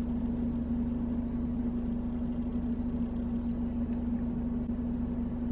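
Steady low hum inside a car cabin, one constant droning tone over a low rumble, unchanging throughout.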